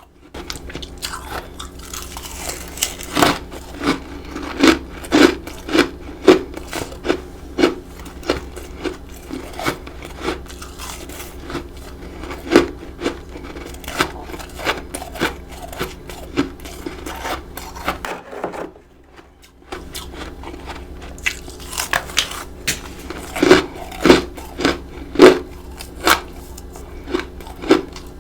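Close-miked crunching and chewing of powdery freezer frost, bite after bite at an irregular pace, with a short pause about two-thirds of the way through. A steady low hum runs underneath.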